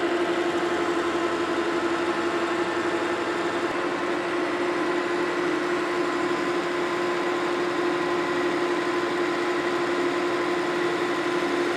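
Metal lathe running steadily while turning a long bar down on its first cutting pass: an even mechanical hum with one strong steady tone.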